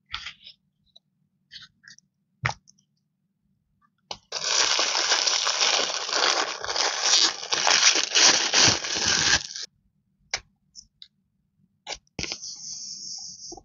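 Wide masking tape being handled and peeled off its roll. Light clicks and taps, then a long stretch of loud crackling from about four seconds in, and a shorter, even, higher-pitched peel near the end.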